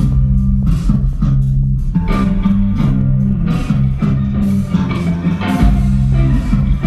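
Instrumental rock music: electric guitar playing over a steady electric bass line.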